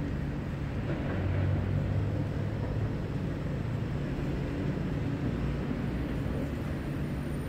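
Steady low rumble of distant city traffic, even throughout with no single passing vehicle standing out.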